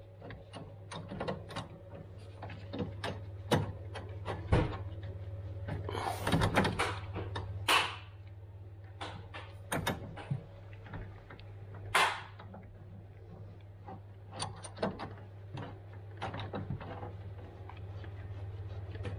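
Scattered clicks and knocks of metal fittings being handled as a boiler filling loop is screwed onto its valves by hand, over a steady low hum.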